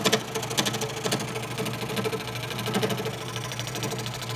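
WEN scroll saw running at a raised speed, its blade stroking rapidly up and down as it cuts through a wooden board, a steady motor hum under a fast, even chatter.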